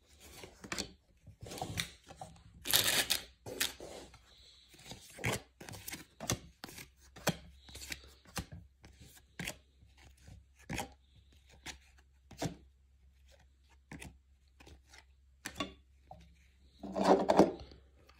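Bowman baseball cards being flipped through one at a time in the hand, each card sliding off the stack with a short papery swish or scrape, irregularly, about once or twice a second. There is a louder rustle of cards about three seconds in.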